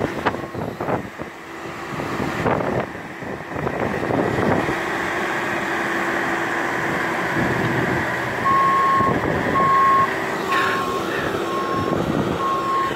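A heavy vehicle's engine running, with its reverse alarm beeping steadily about twice a second from a little past the middle on.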